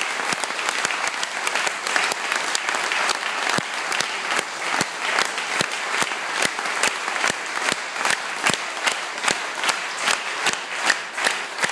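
Concert audience applauding. About halfway through, the clapping settles into rhythmic clapping in unison, about two and a half claps a second.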